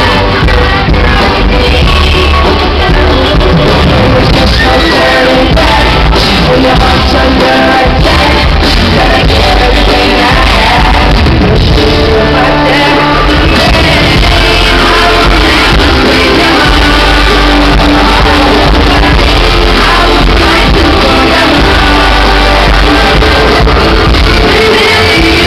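Loud amplified live pop song with a male lead singing, in a large hall, with fans shouting and yelling over it.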